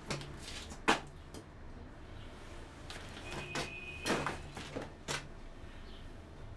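Wall-mounted payphone being handled: sharp clicks and knocks of the handset and keypad, with a steady high beep lasting about a second a little past three seconds in.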